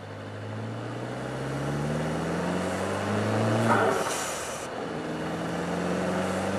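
Mercedes CLA250's turbocharged 2.0-litre four-cylinder engine accelerating, its note rising for a few seconds. About four seconds in, the throttle closes and the aftermarket Forge blow-off valve vents its boost in a loud hiss lasting about a second. The engine then runs steadily at a lower pitch.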